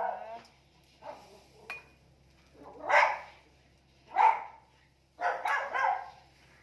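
A dog barking several times: short single barks a second or two apart, then a quick run of barks near the end.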